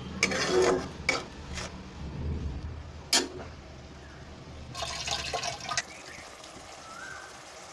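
Spatula stirring and scraping mustard gravy in a wok, a few scrapes and knocks in the first couple of seconds, then a single sharp clink about three seconds in. Between strokes the thin gravy simmers softly.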